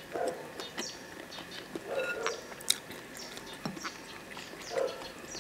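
Close-up eating sounds: chewing and sucking on spicy shell-on prawns and chicken feet, with wet smacks and clicks of the mouth and a few louder slurps.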